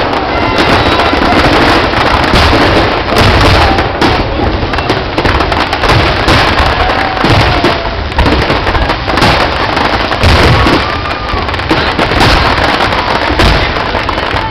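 New Year's Eve fireworks display at the start of the show: a dense, continuous barrage of booming bursts and crackles with no break.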